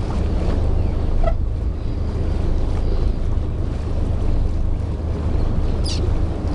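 Wind buffeting the microphone over the low, steady rumble of a boat's idling engine, with water lapping. A brief faint chirp comes about a second in, and a short high squeak comes near the end.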